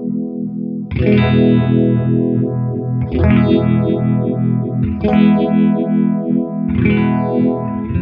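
Electric guitar chords strummed through a Mattoverse Just A Phase phaser pedal, the phaser's sweep moving quickly up and down through each ringing chord. A new chord is struck about every two seconds, four in all.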